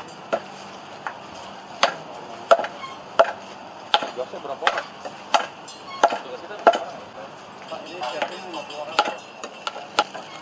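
Cleavers chopping meat and bone on a chopping block: a run of sharp chops, often about two-thirds of a second apart, with a few quicker doubled strokes.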